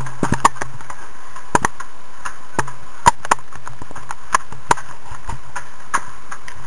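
Irregular sharp knocks and clanks, one or two a second and often in pairs, from a homemade strongman yoke with kegs hung from its ends as it is carried at a walk, over a steady hiss.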